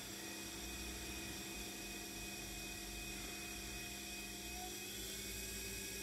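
Three-phase washing machine motor spinning at around 3000 RPM on an Arduino-controlled SPWM inverter, giving a faint steady electric whine and hum. One tone in it glides slightly upward about four to five seconds in as the drive frequency is raised and the motor speeds up.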